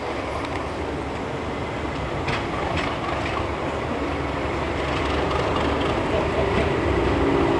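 Class 37 diesel locomotive's English Electric V12 engine working as the locomotive approaches, its sound growing steadily louder. A couple of sharp clicks come about two and a half seconds in.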